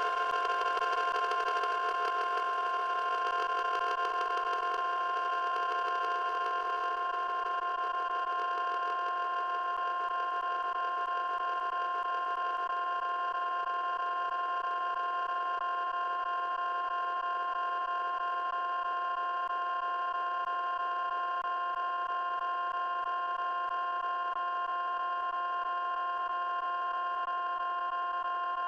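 A steady electronic drone: several held tones sounding together without a break. Its brightest, highest part fades a little over the first several seconds, then it holds unchanged.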